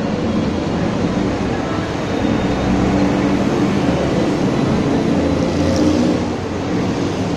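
Street traffic: a motor vehicle's engine running close by, growing louder about two seconds in and easing off near the end.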